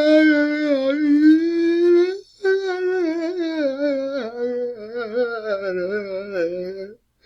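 A man crying in two long, drawn-out wailing moans. His pitch wavers, and the second, longer moan sinks lower toward the end.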